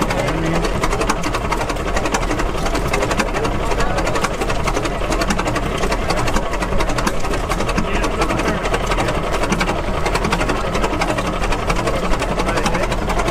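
Antique twin-cylinder vertical engine running steadily, a fast, even mechanical clatter.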